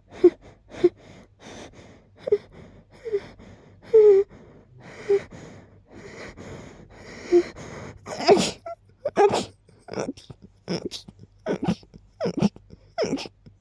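A person sneezing over and over in a rapid fit, set off by smelling lilies. The first half has softer, quicker catches with breathy intakes between them. From just past halfway, louder, sharper sneezes follow each other at about two a second.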